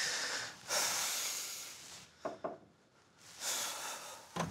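A handkerchief rubbing against skin and a fur collar: soft hissy rustling strokes, with a lull in the middle.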